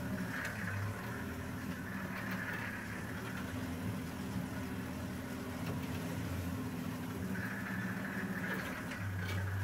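Open safari game-drive vehicle's engine running at a low, steady pace as it creeps along a rough bush track.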